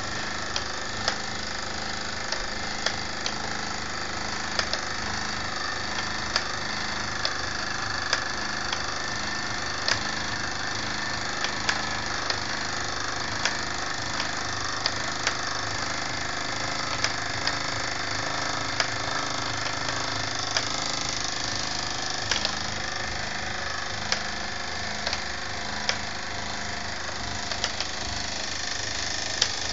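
Mamod model workshop running: steel lineshafts, pulleys and spring belts turning, driven by a Mamod live-steam engine. A steady whirring rattle, with a sharp click about once a second.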